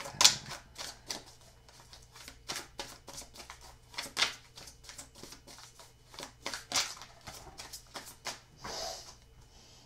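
Tarot cards of a Crystal Visions deck shuffled by hand: an irregular run of soft snaps and flicks of card on card, with louder slaps about a third of a second in, around four seconds and near seven, over a faint steady hum.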